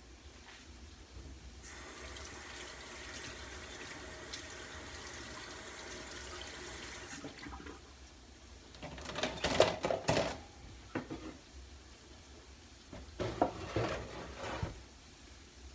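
Kitchen sink tap running steadily for about five seconds and then shut off, followed by two short bouts of splashing and clattering at the sink.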